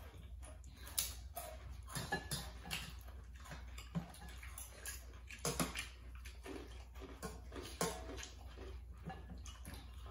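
People eating noodle soup: irregular wet chewing, slurping and lip smacks, with occasional light clinks of a spoon against metal bowls.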